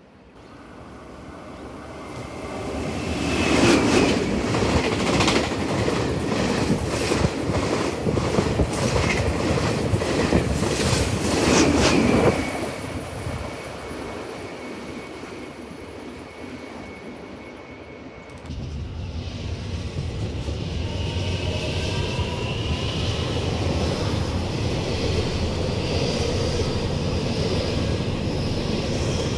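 A train passing at speed, its wheels clicking rhythmically over the rail joints and loudest over several seconds before it cuts off. It is followed by a steadier low rumble of trains with faint whining tones.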